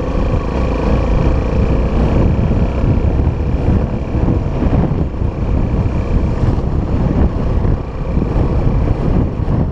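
Honda XR 250 Tornado's single-cylinder four-stroke engine running steadily under way on a dirt trail, a loud, dense rumble.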